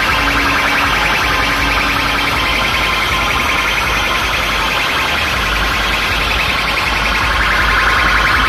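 Loud electronic dance music played through a large DJ sound system: a dense, harsh upper layer over a steady bass, with a held low note that drops out after about two seconds.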